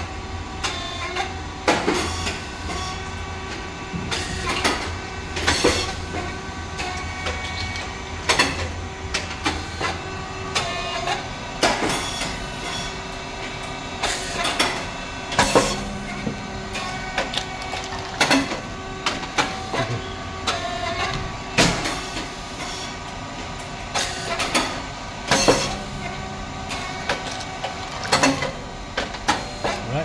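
SYP4506 rice cake popping machine with titanium-coated moulds running its production cycle: a steady machine hum with frequent mechanical clicks and clacks. About every ten seconds comes a loud sharp pop as the heated moulds open and the thin rice chips puff.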